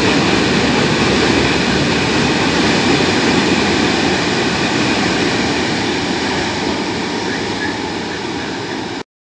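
Freight train of open-top wagons rolling past: a steady loud noise of wheels on rails. It grows a little quieter near the end, then cuts off suddenly.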